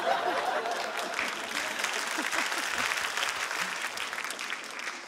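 Audience applauding in response to a stand-up comedian's joke, the clapping fading toward the end.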